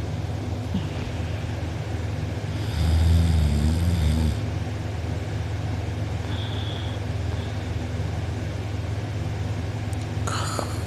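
A sleeping person snoring with the mouth open: one loud, rattling snore lasting about a second and a half, about three seconds in, over a steady low hum. A short, higher sound that rises in pitch starts near the end.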